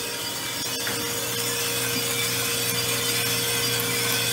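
Arc sample coffee roaster running just after the green beans are charged: the drum turns with beans tumbling and rasping inside, over a steady hum of the roaster's motor and fans. A constant hiss grows a little louder over the first second or so.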